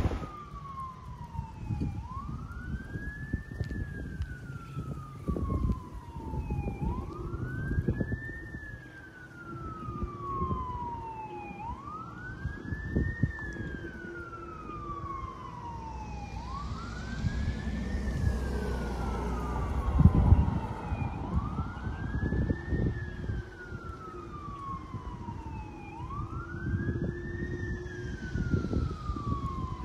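Emergency vehicle siren in wail mode, sweeping up quickly and falling more slowly about every five seconds. Under it are vehicle rumble and wind noise, which swell to their loudest about two-thirds of the way through.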